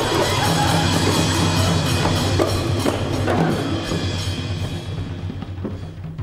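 Traditional Malay Mek Mulung percussion ensemble of hand-beaten frame drums and a barrel drum playing a dense, driving rhythm over a steady low hum, dying away toward the end.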